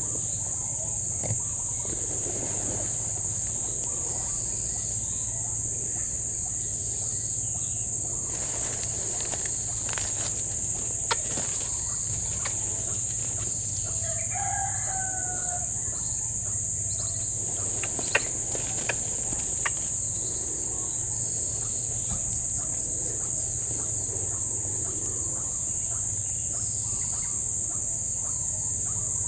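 Steady high-pitched drone of insects, with a short bird call about halfway through and a few sharp clicks.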